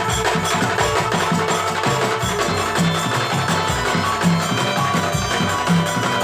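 Instrumental music with a steady percussive beat of short, knocking strokes under held tones, and a stronger low note about every second and a half.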